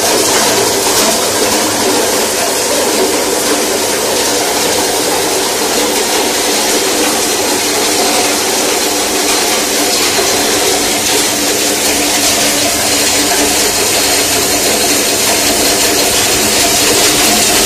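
Betel nut (supari) cutting machine running steadily: an even hum with several steady tones under a dense, loud hiss.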